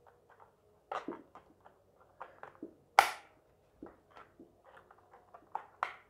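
A pen prying at the plastic RAM compartment cover on a laptop's underside: scattered small plastic clicks and scrapes, with one sharp click about halfway through.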